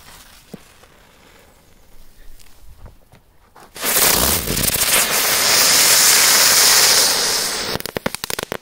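Small 'rozochka' firework going off with a loud, steady hiss for about four seconds, then breaking into a rapid string of sharp crackling pops near the end.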